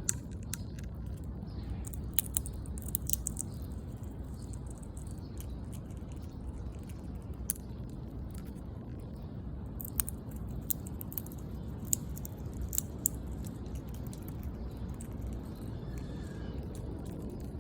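Squirrel sniffing and nosing at the camera up close: scattered sharp little clicks and ticks, in short clusters, over a steady low rumble.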